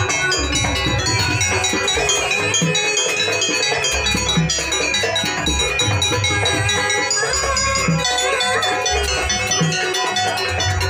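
Jaranan gamelan music accompanying a dance: ringing metallophone and gong tones over deep drum beats, with a wavering melody line above.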